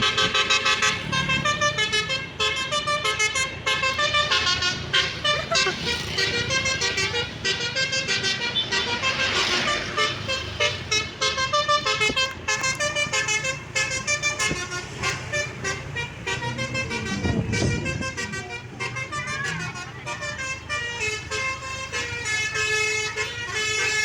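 Basuri telolet bus horn, a multi-tone musical horn, playing a fast tune of short stepped notes without pause, over a low steady rumble. Brief rushes of noise come in about halfway through and again near three quarters of the way.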